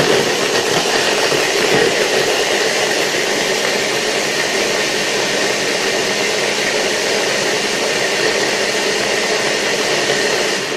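Electric blender running steadily at full speed, chopping pieces of sponge cake into crumbs; it cuts off at the end.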